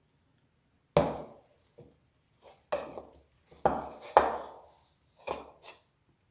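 Irregular knocks and thumps of kitchen handling, about eight strikes over some five seconds, starting about a second in.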